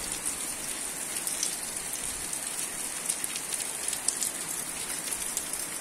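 Heavy rain falling steadily, with many scattered sharp drop hits.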